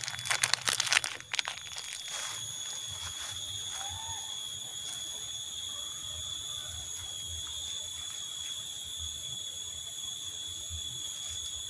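A few seconds of crinkly rustling and clicking as the kneaded fishing bait is packed into its container. Then a steady, high-pitched drone of insects from the streamside vegetation, holding several constant shrill tones.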